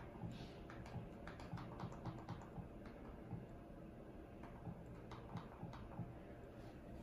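Faint, irregular clicks of a remote control's buttons being pressed to step through the projector's menus, over a steady low hum.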